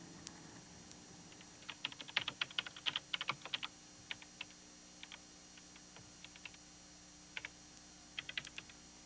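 Typing on a keyboard: quick runs of key clicks about two seconds in, then scattered single keystrokes and a short burst near the end, over a faint steady hum.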